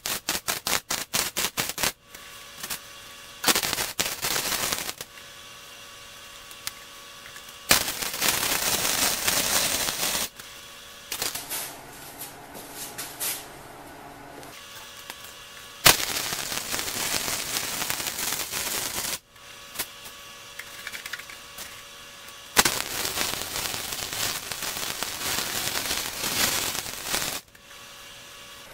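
Harbor Freight 220 V MIG welder laying weld beads on steel frame rails. It opens with a quick string of sharp crackles, then four runs of steady crackling sizzle, each a few seconds long, with short pauses between.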